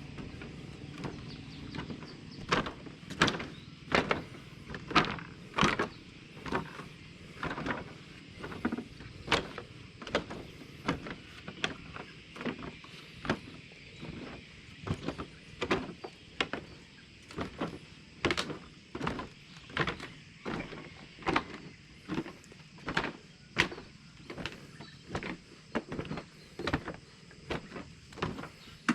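Bicycle tyres rolling with a steady hiss, and a sharp sweeping beat about once every three-quarters of a second that starts about two seconds in.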